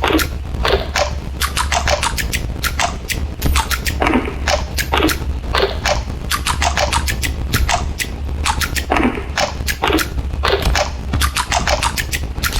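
Electronic noise music: a dense, irregular stream of quick falling zaps, several a second, sweeping from high down to low pitch over a steady low hum.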